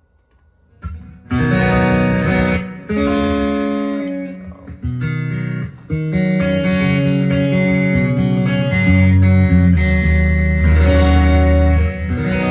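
Harley Benton Nashville Steel acoustic-electric guitar played amplified, its pickup blend set slightly toward the piezo for a livelier tone. After about a second of quiet, chords and single notes ring out, with loud sustained low notes in the second half.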